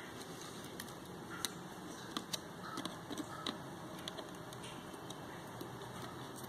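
Small, irregular clicks and taps of tiny plastic and metal camera-lens parts being handled, over a steady background hiss.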